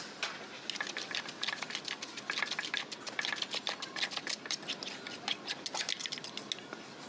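Rapid, irregular clicks and taps of utensils working during som tum making, several a second.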